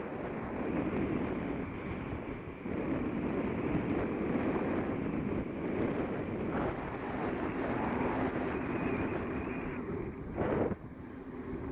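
Wind rushing across the microphone of a Contour Roam action camera as it moves, a steady noise with a brief louder gust about ten and a half seconds in.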